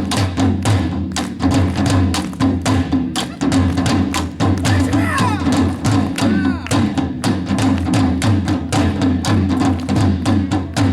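Korean traditional percussion ensemble playing buk drums and other percussion in a fast, dense rhythm of rapid strikes.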